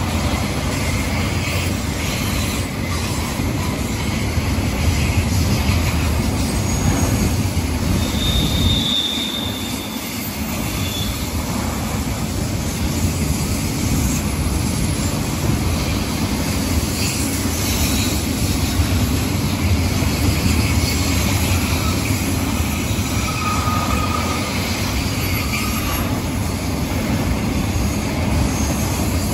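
Double-stack intermodal freight cars rolling past on the rails: a steady low rumble of wheels on track, with brief high wheel squeals about nine seconds in and again near twenty-four seconds.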